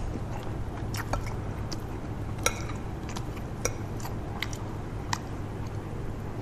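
Knife and fork clicking against a metal sizzle platter while steak and green beans are cut and eaten, with soft chewing. The clicks come irregularly, about ten in all, over a steady low hum.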